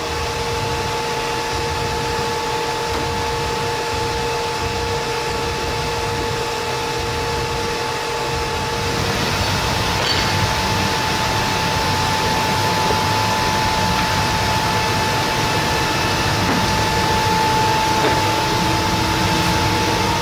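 Laguna SmartShop CNC router and its dust-extraction system running: a steady machine roar with a held whine. A lower whine drops out about nine seconds in.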